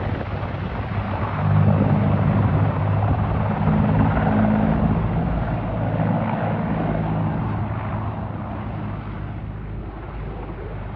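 Military helicopter running, a steady low rotor and turbine hum with a rushing wash over it; it grows louder about a second and a half in, then slowly fades.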